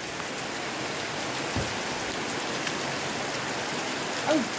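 Heavy rain falling steadily, an even hiss with no letup. A brief voice-like call cuts in near the end.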